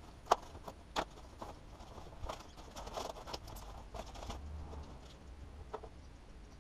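Foam packing wrap rustling and crinkling as it is pulled off a new motorcycle fairing panel, with sharp crackles about a third of a second and a second in.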